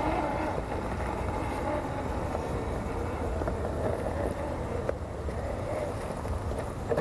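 Axial SCX10 II Trail Honcho RC crawler's electric motor and gears running with a wavering whine as it crawls over tree roots, under a steady low rumble of wind on the microphone.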